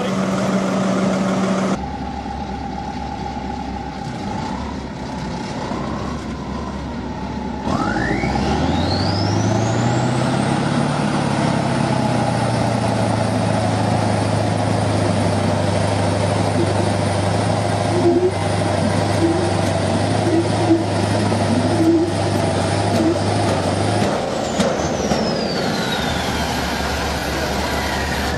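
Big diesel tractor engines pulling flat out in a tug-of-war. About eight seconds in an engine revs up, with a whistle rising to a high pitch, and it holds a steady, heavily loaded note for some fifteen seconds. It then drops off, the whistle falling away.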